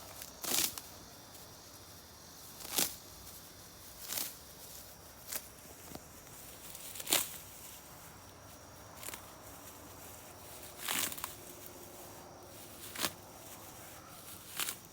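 Grass and weeds being pulled up by hand, a short rustling tear every second or two, about nine in all. A faint steady chirring of insects runs underneath.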